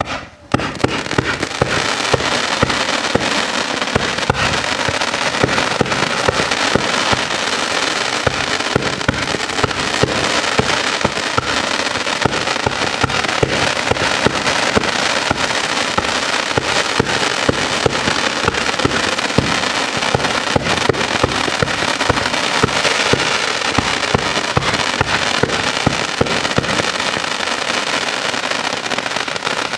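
Absolute Fireworks 'Pyro Haven' 61-shot fan cake firing: shots going off in steady quick succession, about two a second, over a continuous dense crackle from its gold crackling brocade effects. It stops abruptly near the end.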